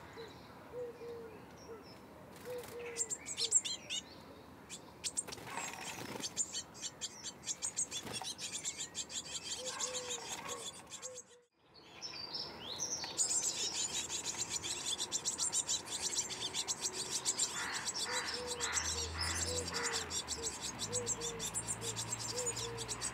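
Small songbirds chirping in rapid high calls, over a low call repeated in short cooing notes about twice a second. The sound breaks off briefly about halfway through.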